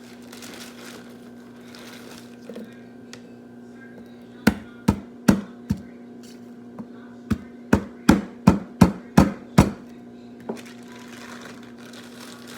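Knife chopping on a cutting board: a run of four sharp knocks, a short pause, then about seven more quicker knocks, over a steady low hum.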